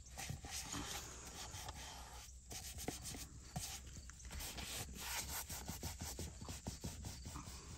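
A paper wipe rubbed by hand over a car's seat and console trim, in irregular scratchy strokes with small clicks and taps.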